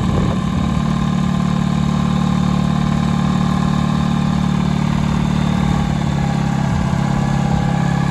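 John Deere 435's two-cylinder GM 2-53 two-stroke diesel, freshly started and running steadily and sweet.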